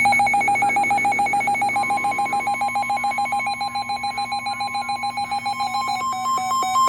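Weather radio alert tones announcing a flash flood warning. A rapid electronic beeping is joined about two seconds in by a steady high alarm tone, the NOAA Weather Radio warning alarm. Near the end it changes to a quicker two-tone alternating beep.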